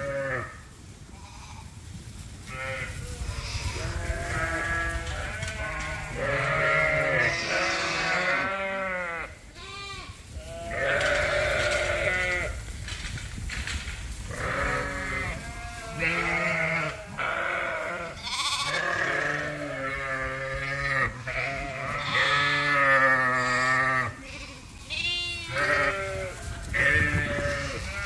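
A barnful of Dorset sheep, ewes and lambs, bleating: many wavering calls overlapping one after another with hardly a pause.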